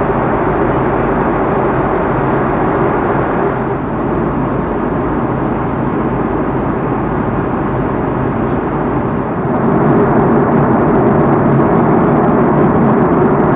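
Steady cabin noise of an Airbus A330-300 in cruise: a constant rush of air and engine drone. It gets a little louder about nine and a half seconds in.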